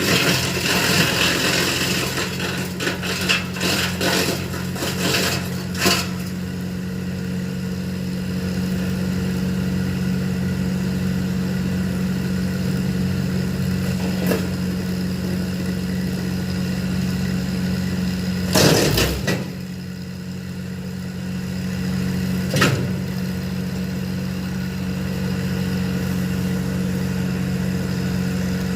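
Tractor engine running steadily at PTO speed, driving a Titan wood chipper. Rough bursts from the chipper cutting branches come in the first six seconds, with single sharper bursts about 14, 19 and 23 seconds in.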